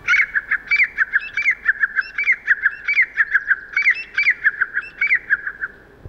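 Recorded call of a grey francolin played back over a loudspeaker: a quick run of loud, repeated notes in short phrases, stopping shortly before the end. It is the male's rising and retiring call at its roost, announcing 'I am here, this is my place'.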